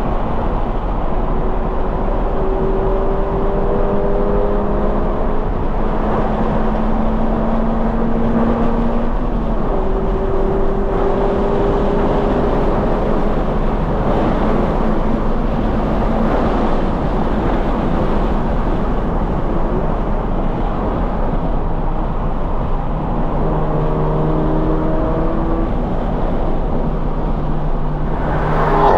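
Toyota 86's flat-four engine through a Corsa cat-back exhaust, pulling hard on track, its pitch climbing slowly and dropping back a few times at gear changes, over steady wind and tyre noise.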